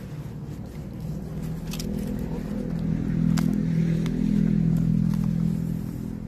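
A motor vehicle's engine running nearby, a low steady drone that swells louder through the middle and eases near the end. A few crisp crackles of banana leaves being folded by hand.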